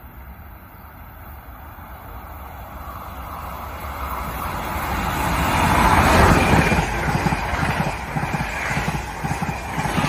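Amtrak Acela high-speed electric trainset passing through a station at speed. A rushing noise swells to its loudest about six seconds in as the power car goes by. The coaches follow with a rhythmic clatter of wheels on the rail.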